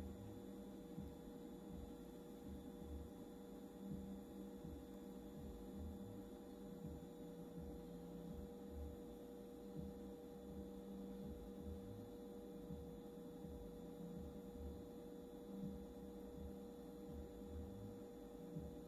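Faint, steady electrical hum with a few thin steady tones from a running solar inverter-charger.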